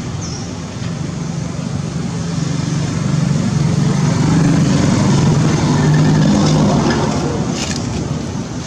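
A motor vehicle's engine running with a steady low hum, growing louder through the middle and easing off near the end, as if passing close by.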